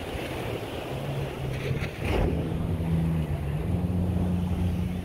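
An engine running with a steady low hum over wind and surf; its pitch steps up about two seconds in and again a little later, as if the throttle were being opened, with a short noise just before the first rise.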